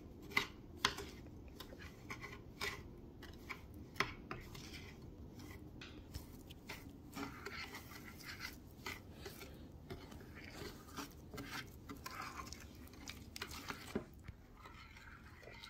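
A spoon stirring and scraping the butter and brown sugar caramel mixture in a baking dish: irregular clicks and scrapes of the utensil against the dish.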